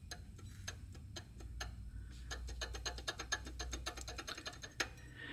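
Serpentine belt tensioner pulley on a Toyota 2UZ-FE 4.7-litre V8, turned and rocked by hand, its bearing giving a faint run of rapid ticks that come fastest in the middle. The mechanic takes this for a completely dried-out original bearing with a lot of play.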